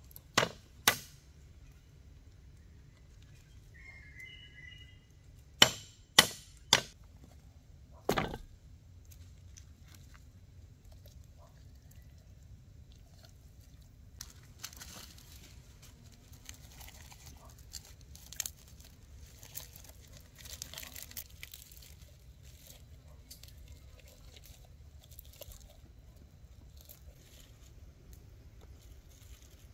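Sharp chopping strikes of a blade: two in quick succession at the start, then four more a few seconds later. After that come quieter, scattered rustling and handling sounds.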